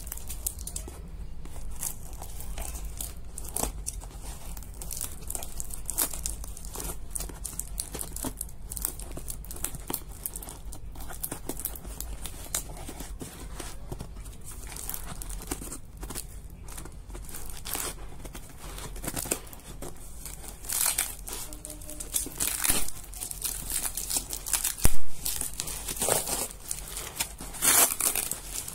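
Clear polythene wrap and packing tape on a cardboard parcel crinkling and tearing as it is cut and pulled open by hand. Irregular crackles and rips grow louder and more frequent in the last several seconds.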